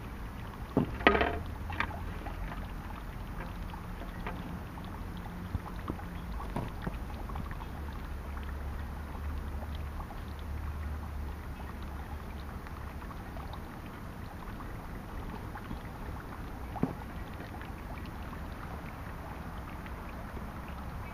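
Suikinkutsu (water koto cave): water trickles steadily from a bamboo spout into a stone basin, and scattered drips fall into the buried jar beneath, giving faint plinks, one louder and ringing about a second in.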